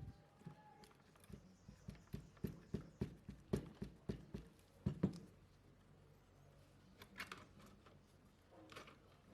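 A quick run of small, sharp clicks and taps from small tools and plastic and metal parts of an opened smartphone being worked on, about two or three a second for several seconds, then a few scattered clicks.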